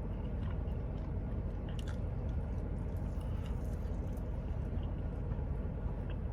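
A person chewing food close to the microphone, with small scattered wet mouth clicks, over a steady low hum.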